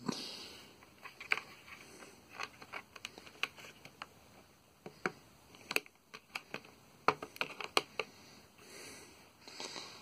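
Light clicks and taps from hands handling a plastic drill-bit case and the steel bits and nut drivers seated in it. Many short, sharp clicks come at irregular intervals.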